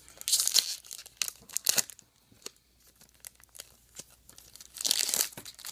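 A trading-card pack wrapper being torn open and crinkled by hand: a burst of tearing and crackle at the start, a short rip a moment later, then a quieter pause and another burst of wrapper crinkling near the end.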